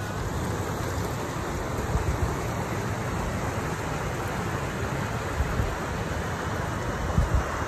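A shallow river running over rocks, heard as a steady rush of water, with wind buffeting the microphone in irregular low rumbles.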